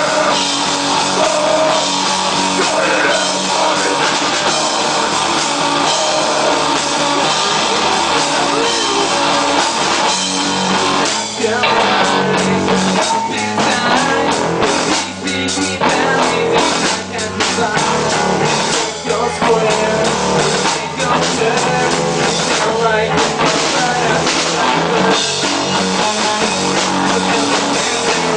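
Rock song playing, with drums, guitar and singing.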